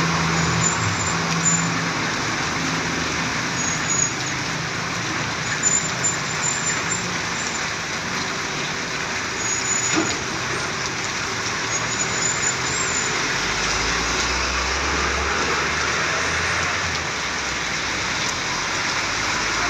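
Roadside traffic: a steady wash of engine and tyre noise from passing buses and other vehicles, with a deeper rumble from a heavy vehicle about two-thirds of the way through.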